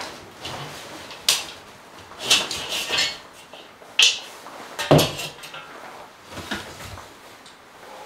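Rummaging in a backpack, with a two-handled metal pan knocking and clanking as it is lifted out and set down on a wooden table. There are several sharp knocks; the loudest, about five seconds in, is a heavy clank that rings briefly.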